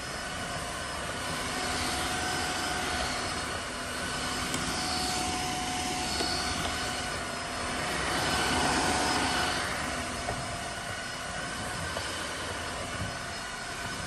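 Tineco Floor One S5 Pro cordless wet-dry vacuum mop running, a steady motor whine and rush of suction as it picks up loose dirt from a hardwood floor, getting a little louder about two seconds in and again around nine seconds.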